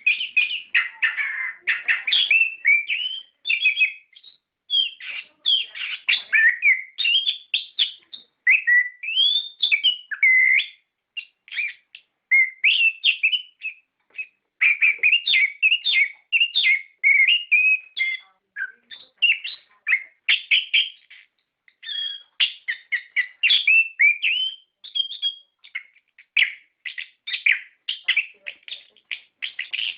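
Orange-headed thrush (anis kembang) in full song: a fast, varied stream of chirps and whistled phrases, breaking off only for short pauses.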